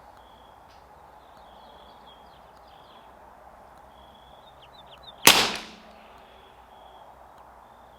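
A single shot from a CZ 457 AT-ONE bolt-action rimfire rifle firing Lapua Center-X .22 LR, about five seconds in. It is a sharp crack with a short tail.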